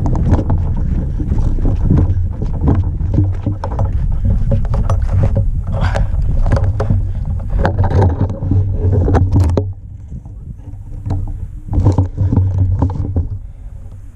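A person running through dry grass and brush with an airsoft rifle: quick footfalls, rustling and gear jostling close to the microphone over a heavy low rumble. It stops about two-thirds of the way through, then a shorter burst of rustling and thuds comes near the end as he shifts by the tree.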